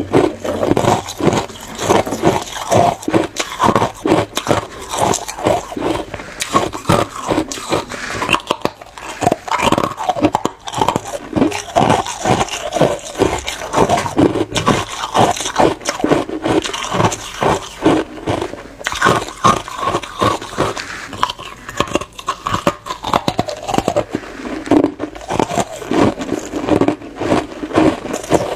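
Hard clear ice being bitten and chewed: a dense run of sharp crunches and cracks, several a second.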